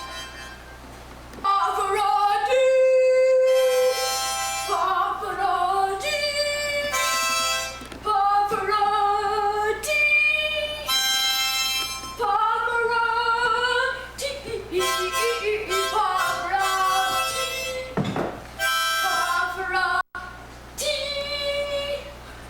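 Harmonica played in long held notes and chords, changing every second or two with short breaks between, some notes wavering in pitch.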